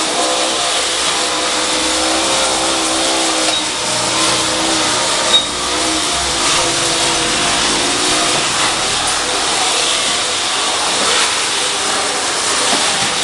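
Automatic paving-block machine running: a steady motor hum over a loud mechanical rattle, with one sharp click about five seconds in.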